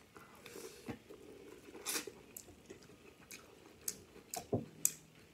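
Chewing and biting corn on the cob: wet, squishy mouth sounds with a few short, sharp smacks and clicks scattered through.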